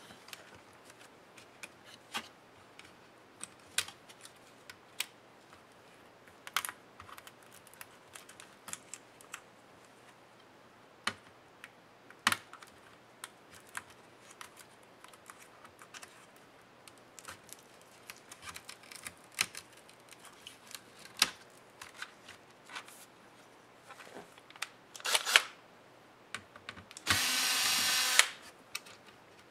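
Scattered light clicks and taps of laptop parts and cable connectors being handled inside an opened ThinkPad E550. Near the end a cordless electric screwdriver runs for about a second, driving a screw at the motherboard.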